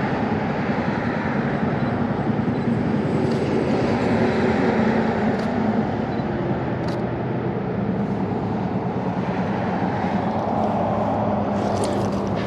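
Steady drone of an engine, a continuous rushing noise with a low hum holding near one pitch and no break.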